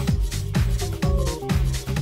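Classic house music from a live DJ mix: a steady four-on-the-floor kick drum about twice a second, with offbeat hi-hats and a stepping synth melody.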